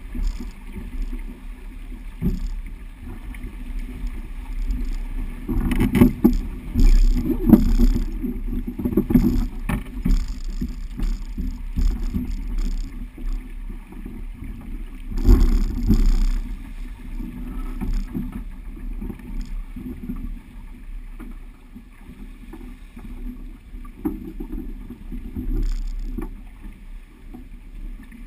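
Wind buffeting the camera's microphone on a sailing yacht in a stiff breeze, with water rushing along the hull. The buffeting surges louder a few times, around six to nine seconds and again about fifteen seconds in.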